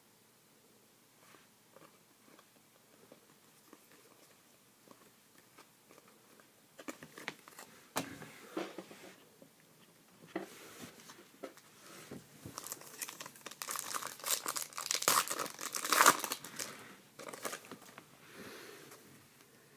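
Trading cards handled and flicked through, then a foil trading-card pack torn open and its wrapper crinkled by hand. The crinkling is loudest in a burst about two-thirds of the way in.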